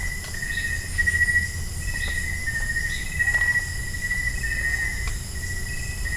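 Night insects chirring in a steady high-pitched chorus that pulses about twice a second, over a low rumble.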